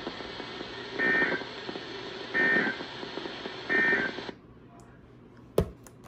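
Three short bursts of EAS end-of-message data tones, a two-tone warble, from a Sangean NOAA weather radio's speaker over a steady hiss of static. The hiss cuts off about four seconds in as the broadcast ends, and a single sharp click follows near the end.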